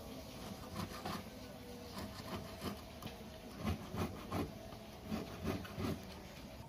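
Short, irregular strokes of a small hand file scraping the silver bezel of a pendant, with the piece braced against a wooden bench pin; the strokes grow louder in the second half.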